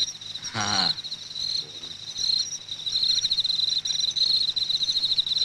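Crickets chirping in a steady, fast-pulsing trill, with one short vocal sound from a person just after half a second in.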